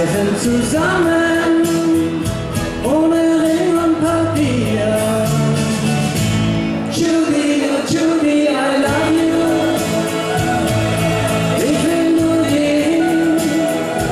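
Live Schlager music: a man singing long, sliding notes into a handheld microphone over backing music with a steady beat.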